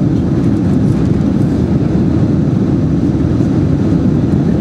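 Steady low rumble of engine and rushing-air noise inside the cabin of a Boeing 767-300ER descending on final approach with flaps extended.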